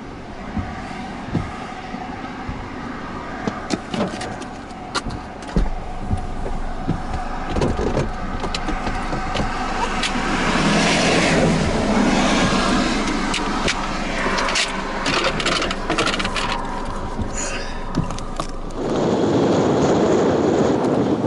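A vehicle running, with a steady drone, scattered sharp clicks and knocks, and a loud rushing noise near the end.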